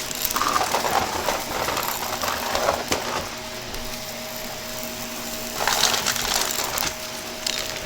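Vacuum cleaner running with a steady motor hum while it sucks up crunchy debris, which crackles and rattles through it in two stretches, the first about three seconds long and the second near the end.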